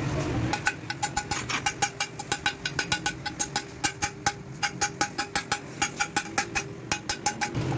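Rapid metal-on-metal hammer taps on a steel drift, driving a ball bearing into its bore in a Honda CG 125 aluminium crankcase half, each strike with a short ring. The taps come in quick runs of about five a second with brief pauses.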